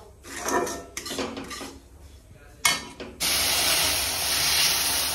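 Steel ladle scraping and stirring dry-roasted semolina in a kadhai. About three seconds in, a sudden, loud, steady sizzling hiss starts as cold milk hits the hot roasted semolina for halwa.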